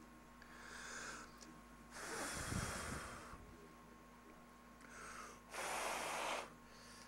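A man breathing heavily through his nose close to the microphone: two breaths, each a soft intake followed by a louder exhale, the first exhale about two seconds in and the second near the end.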